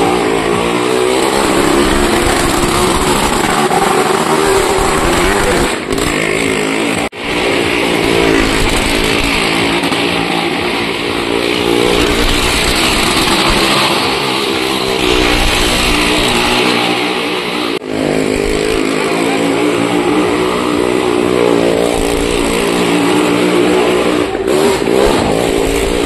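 Motorcycle engine running hard as the bike circles the vertical wooden wall of a well-of-death drum. The engine note rises and falls continuously as it goes round.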